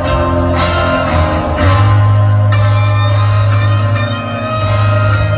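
Live rock band playing loudly: distorted electric guitars holding heavy chords over bass and drums, with a few cymbal crashes.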